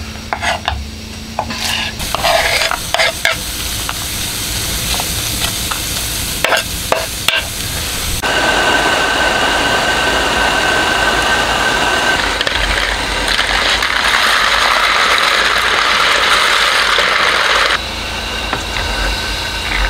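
Scattered knife clicks on a wooden cutting board as carrots are cut. About eight seconds in comes a steady, loud hiss of a portable gas cartridge stove burning under a pot of water at a rolling boil, which cuts off sharply near the end. After that, pasta is stirred in the pot with a wooden spoon.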